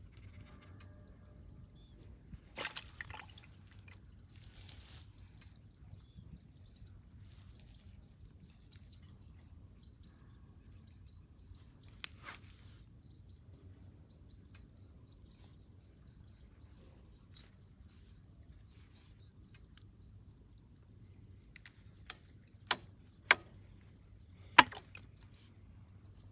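Quiet handling of a wet cast net as small catch is picked out of the mesh by hand, with a few soft clicks and, near the end, three sharp knocks.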